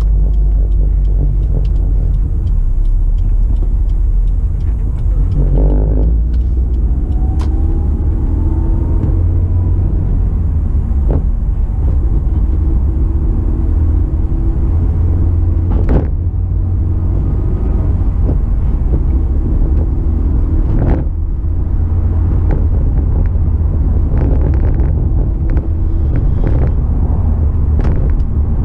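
Inside the cabin of a Honda S2000 on the move: its four-cylinder engine and the road make a steady low rumble. A note rises for a few seconds about six seconds in, and a few brief knocks come through later.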